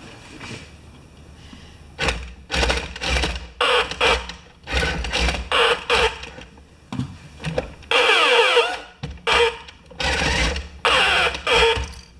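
Electric drive motors and gearbox of a scale-model fire truck whirring in about ten short runs, starting and stopping roughly every second from about two seconds in. One run near eight seconds in slides up and down in pitch.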